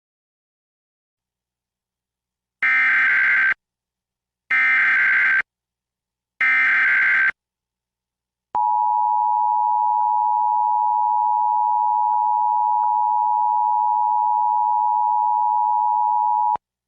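Emergency Alert System Required Monthly Test opening: three buzzy digital SAME header data bursts of about a second each, then the steady two-tone EAS attention signal for about eight seconds, which cuts off suddenly.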